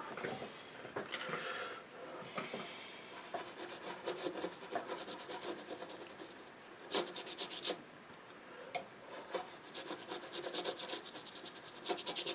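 A paintbrush, most likely a thin rigger, scratching and rubbing in short irregular strokes across watercolour paper, with a couple of sharper taps about seven seconds in.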